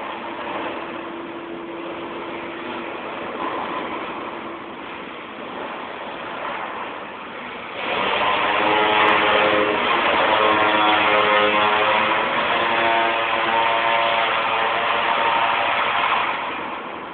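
MIG welding arc burning steadily for about eight seconds, a loud buzzing crackle that starts suddenly partway through and stops shortly before the end. Before it there is a quieter steady hum from the welding setup.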